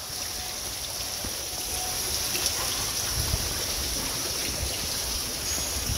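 Water falling from the tiers of an ornamental fountain and splashing steadily into its basin.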